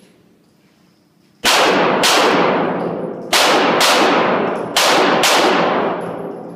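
Six pistol shots fired as three quick pairs, the shots in each pair about half a second apart. Each shot rings on in a long echo in the indoor range.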